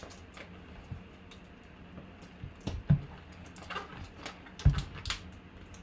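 Clear plastic wrapping on a baseball bat being handled and pulled at, giving irregular crinkles and rustles, with a couple of dull knocks about three and five seconds in.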